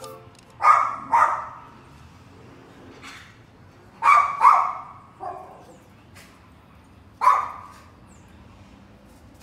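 Miniature pinscher barking in short, sharp barks: two about a second in, two more around four seconds in followed by a weaker one, and a single bark near the end.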